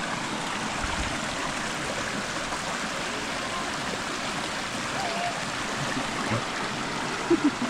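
Creek water rushing steadily over rocks, with a few light knocks near the end.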